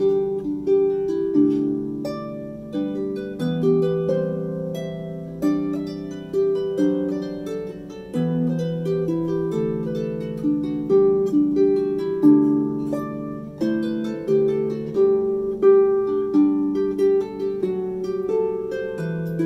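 Background music: a steady stream of plucked-string notes, each struck sharply and fading away, in a gentle harp-style melody.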